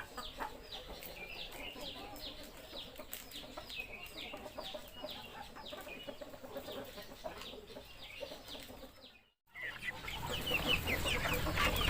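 Chickens cheeping: a steady run of short, falling peeps, about three a second. The sound cuts out briefly a little past nine seconds, then the cheeping comes back louder.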